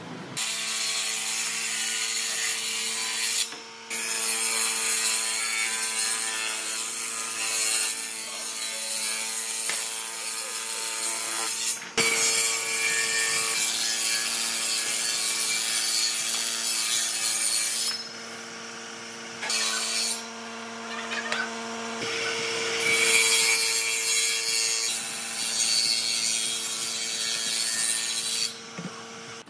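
Power tool working wood: a steady motor hum under a loud, rasping hiss of cutting or sanding that comes and goes in long stretches, with a few short breaks where only the motor carries on.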